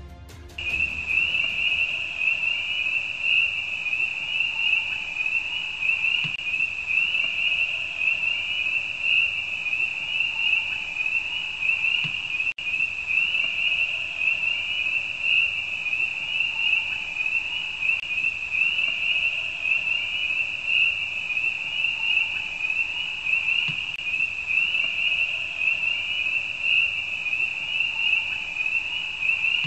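A steady, high-pitched chorus of night creatures trilling without pause, the ambience of a night scene. It starts abruptly just after the opening, with a momentary dropout about twelve seconds in.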